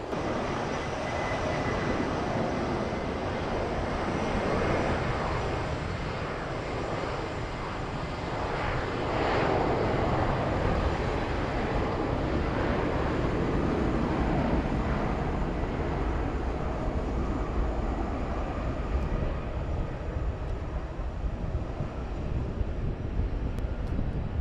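Jet airliner engines running on the airfield: a broad rumble and roar that swells to its loudest about ten seconds in, then eases off.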